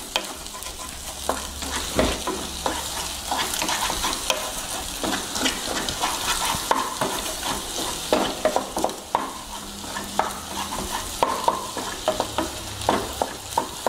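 Eggs sizzling as they fry in oil in a non-stick pan, with a wooden spatula scraping and knocking against the pan as it scrambles them. The knocks come thicker near the end.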